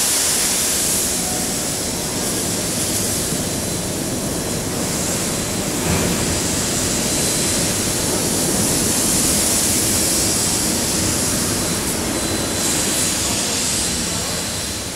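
Steady loud hiss and roar of steam venting, with no break or change in character.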